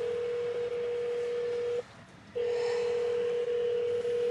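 Telephone ringback tone over a car's hands-free phone system: two long steady rings of about two seconds each, with a short break between, as an outgoing call rings without being answered.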